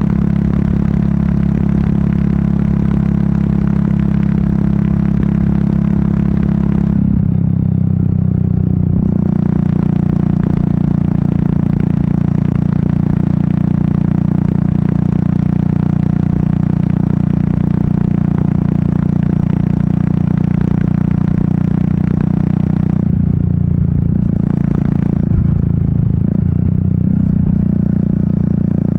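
Royal Enfield Meteor 350's single-cylinder four-stroke engine and exhaust running at a steady cruising pace. The note drops and shifts twice, about seven seconds in and again near twenty-three seconds, then settles back to its steady run.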